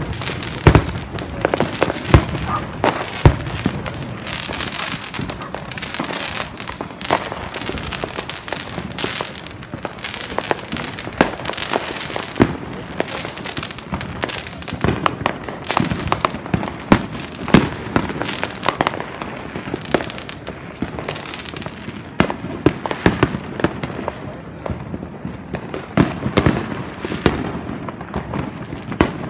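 Neighborhood fireworks and firecrackers going off in a dense, unbroken barrage of overlapping pops, bangs and crackles, with louder sharp reports scattered throughout.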